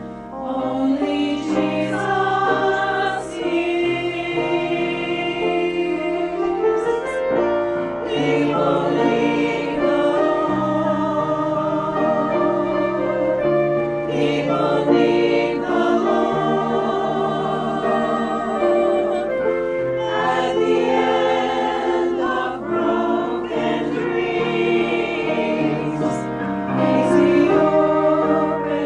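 A choir singing a sacred hymn or anthem, with many voices holding sustained notes.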